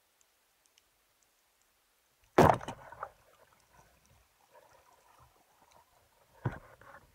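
Rubber-band speargun fired underwater: one sharp, loud thump as the bands release and drive the shaft, with a short rattle after it. A second, smaller thump follows about four seconds later.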